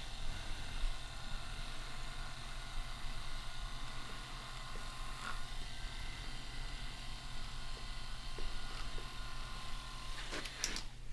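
Handheld percussion massage gun running with a steady low buzz.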